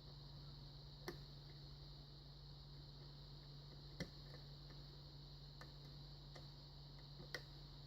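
Three faint, sharp clicks a few seconds apart, with a few fainter ticks, from a steel pick hook slipping off the pin tumblers inside an American Lock Series 40 padlock as it is single-pin picked. The clicks come from the pick sliding off the pins, not from pins setting. A low electrical hum runs underneath.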